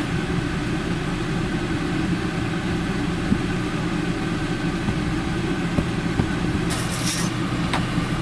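Steady low machine hum with a constant pitch, as of a motor running without change. A few brief rustles and a click come near the end.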